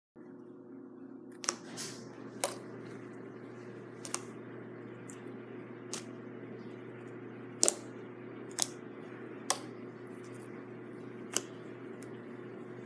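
About eight sharp, irregularly spaced clicks over a steady low hum.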